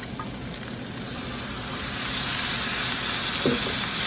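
Pan sauce sizzling in a hot pan as chicken stock is added to deglaze it, the hiss swelling louder about halfway through. A single light knock near the end.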